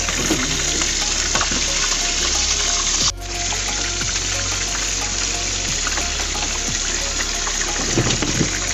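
Steady sizzle of oil deep-frying, dropping out sharply for a moment about three seconds in.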